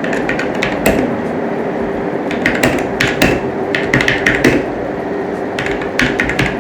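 Typing on a Tsunami MK61 mechanical keyboard: keystroke clicks in short, quick bursts with pauses between words, over a steady background hum.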